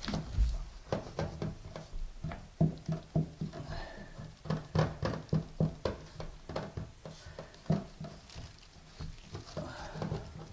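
A trowel and putty knife working thin-set mortar against a ceramic wall tile: a busy run of short scrapes and knocks, several a second.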